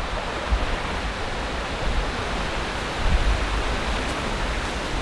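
Steady rush of flowing water, with low bumps of footsteps and camera handling underneath.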